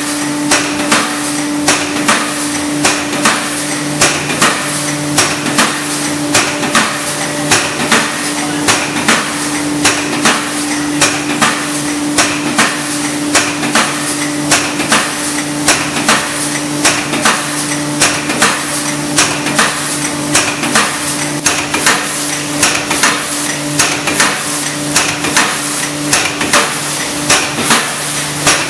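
Aluminium foil container making machine running: its 80-ton press stamps in a steady rhythm of sharp metallic clanks, about two a second, over a steady motor hum.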